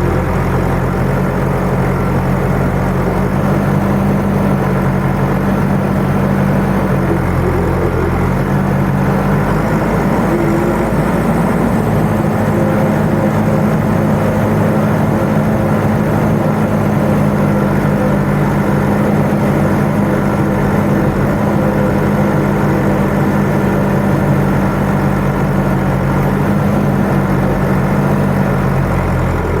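Tractor diesel engine running steadily, its pitch shifting slightly up about eight to ten seconds in.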